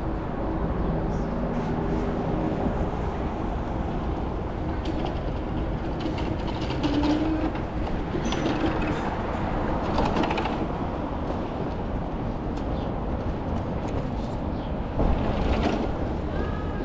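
Steady low rumble of city traffic on wet streets, with short fainter sounds on top.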